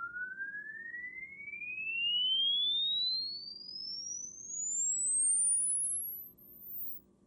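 A sine-wave test tone sweeping steadily upward in pitch, from a high whistle to the top of hearing and out of earshot near the end. Its loudness wavers as it climbs. This is a frequency-sweep test signal played through the amplifier to drive its spectrum analyzer display.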